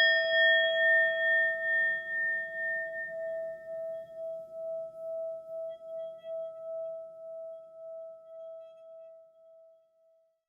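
A single struck bell-like tone ringing out and fading slowly over about ten seconds, with a steady pulsing waver.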